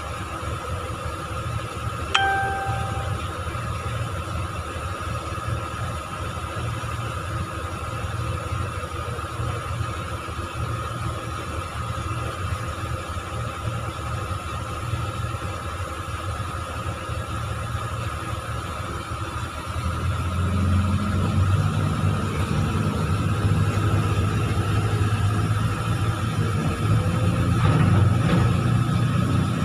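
Heavy diesel engine of an excavator running steadily with a low rumble, getting louder about twenty seconds in as the casing is being pulled. A single short ding sounds about two seconds in.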